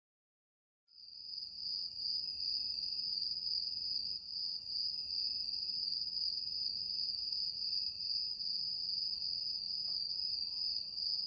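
A steady, high-pitched insect trill that starts about a second in, over a faint background hiss.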